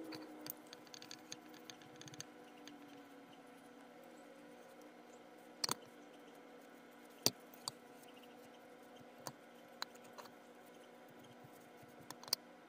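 Scattered light clicks and knocks of metal parts of a disassembled grinder being handled and wiped by hand, the sharpest knock about seven seconds in, over a faint steady hum.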